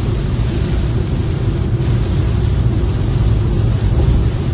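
Steady rumble and hiss heard inside a moving car's cabin: heavy rain beating on the roof and windscreen, mixed with tyre noise on the flooded road.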